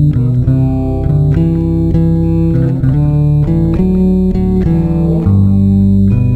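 Instrumental guitar music: plucked guitar notes over a low bass line.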